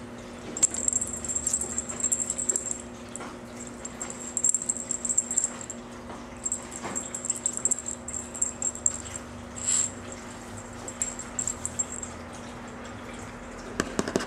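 Cat teaser toy rattling in quick high bursts as it is waved and batted, over a steady low hum.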